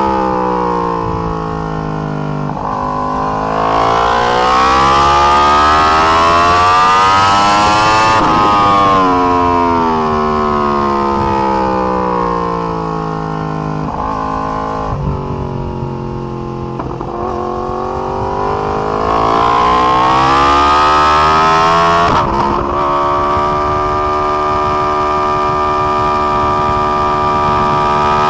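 Yamaha R1's crossplane inline-four engine heard from on board at track speed. The engine note falls, climbs hard under acceleration with wind rush, drops under braking with a few quick downshifts about halfway through, then climbs again with an upshift near the end.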